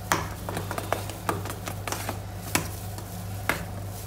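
Chopped fruit and whipped cream being stirred together by hand in a steel bowl, with irregular sharp clicks against the bowl, over a steady low hum.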